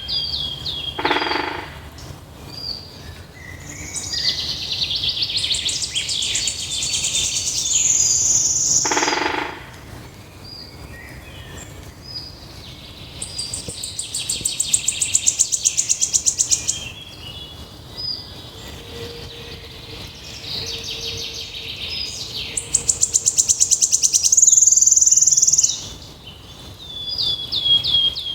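Songbirds singing: several phrases of fast, high-pitched trills and chirps with short pauses between them.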